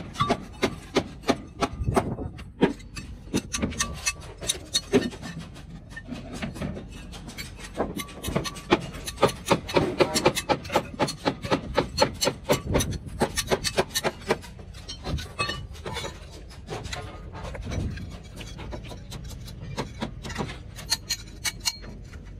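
Rapid, irregular knocking and scraping of hand tools on timber and steel scaffolding pipe during formwork construction, a few knocks a second.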